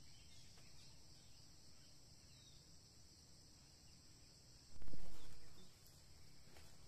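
Steady high-pitched chorus of insects over rural background noise. About five seconds in, a brief louder low thump and rumble rises over it and fades within a second.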